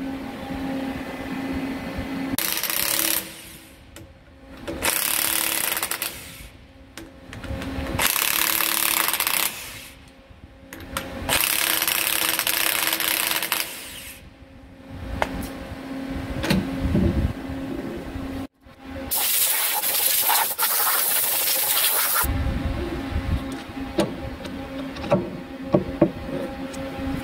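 Corded Milwaukee impact wrench hammering on the clamp bolts of a vertical lathe's chuck jaws, in five main bursts of one to three seconds each. A few light metal clinks come near the end as a jaw is handled.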